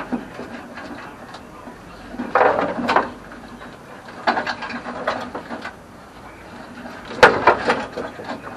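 Ratchet wrench clicking and metal clattering in three short bursts, typical of undoing fasteners while stripping out a car's dash.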